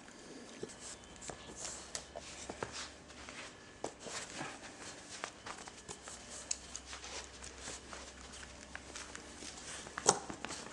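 A young Shar-Pei x Mastiff puppy moving about on carpet, making scattered soft taps and rustles, with one sharper knock about ten seconds in.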